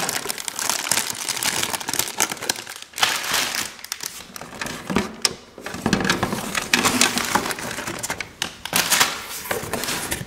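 Plastic bags crinkling and rustling as toy pieces are handled, with many small clicks, stopping briefly a few times.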